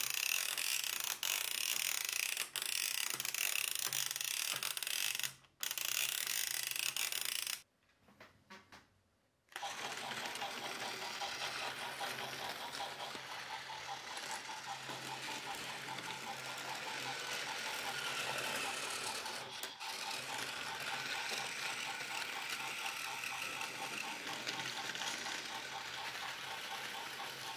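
Battery-powered Thomas toy engine's small electric motor and plastic gears whirring with a fast, even clicking as it runs on plastic track. The sound breaks off abruptly twice in the first ten seconds, then runs steadily.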